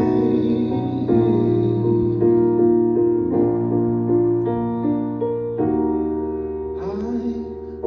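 Keyboard, an electric piano sound, playing slow sustained chords over a steady low bass, the chord changing every second or so, with a short sung note near the end.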